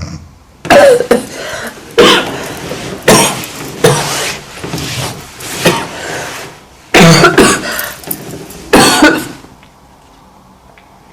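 A woman coughing repeatedly, a run of about seven loud, harsh coughs a second or so apart that stops about nine seconds in.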